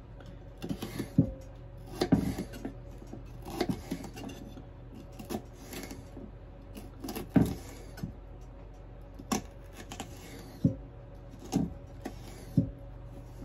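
Kitchen knife slicing a bell pepper into long strips on a wooden cutting board: irregular knocks of the blade striking the board, roughly one a second.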